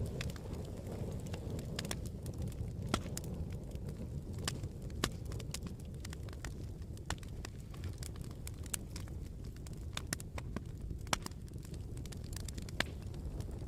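Campfire burning: a steady low rumble of flames with irregular crackles and pops throughout, and a handful of louder sharp snaps.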